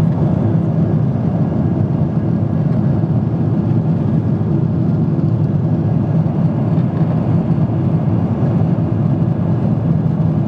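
Steady cabin noise of a jet airliner at cruising altitude: an even low hum of engines and rushing air, heard from a window seat.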